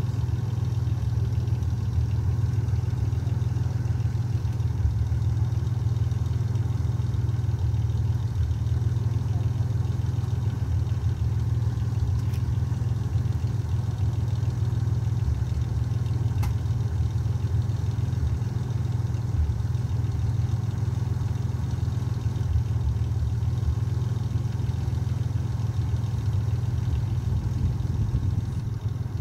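A vehicle engine idling steadily, an even low hum, with two faint ticks near the middle.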